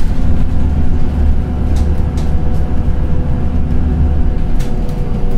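Passenger-cabin noise of a Scania Citywide LFA articulated bus running on compressed natural gas: a steady, heavy low rumble from the engine and drivetrain, with a faint steady whine above it and a few light rattles from the cabin fittings.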